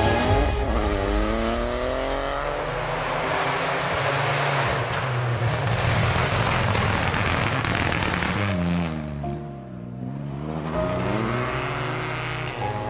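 Opel Corsa rally car engine at full stage pace. Its pitch drops as the driver lifts off and climbs again as the car accelerates, twice, with a dense rushing noise of the car passing in between, over background music.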